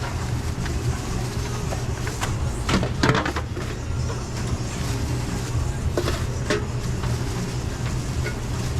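Restaurant kitchen noise: a steady low drone with a few sharp clatters of kitchenware, a cluster about three seconds in and a couple more around six seconds.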